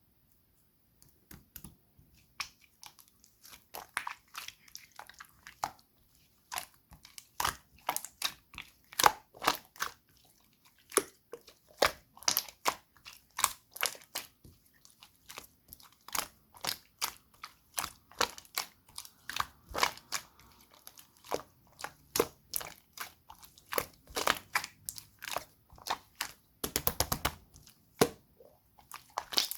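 Gold-pearl slime being played with by hand, giving irregular sticky clicks and small pops, with a quick run of clicks near the end.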